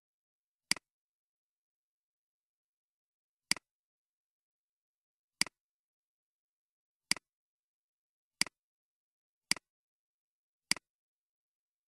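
Seven sharp computer mouse clicks, unevenly spaced and coming quicker toward the end, against dead silence.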